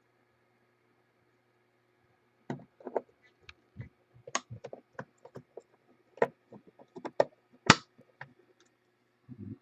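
Hands handling trading cards and their plastic packaging: a run of irregular plastic clicks and light knocks starting about two and a half seconds in, with one sharper snap near the end.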